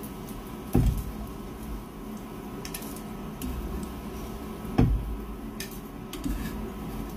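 Frying pan and metal tongs being handled on a portable induction cooktop: two dull knocks of the pan, about a second in and about five seconds in, with light clicks of the tongs against the pan between them. A faint steady hum runs underneath.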